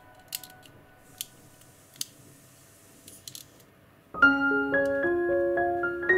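A few small sharp clicks of plastic model-kit parts being handled and fitted together, then background piano music starts suddenly about four seconds in.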